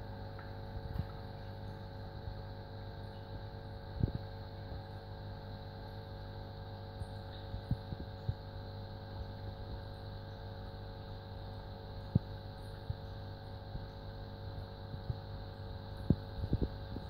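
Electric aquarium air pump driving a sponge filter, humming steadily with a low mains-frequency buzz. A few short knocks stand out over it: one about four seconds in, one around twelve seconds, and a small cluster near the end.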